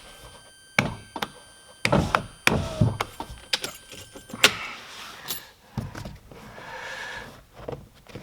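Plastic clicks and knocks as a car's electric window switch unit is taken out, turned round and pressed back into the door trim panel. Near the end there is a steadier noise lasting about two seconds.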